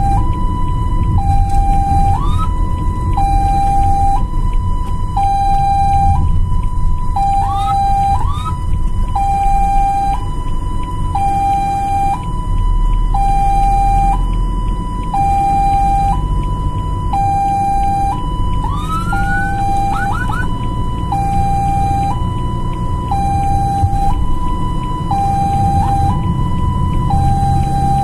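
Ambulance siren on a steady hi-lo two-tone cycle, switching back and forth between a higher and a lower note, over a steady vehicle rumble. A few brief rising whoops cut in, about two seconds in, near eight seconds and twice more around twenty seconds.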